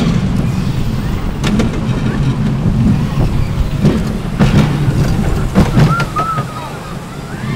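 Roller coaster car rumbling along its steel track with wind on the microphone, marked by several sharp clanks. After about six seconds it turns quieter as the car runs into the brake section, with a brief high squeak.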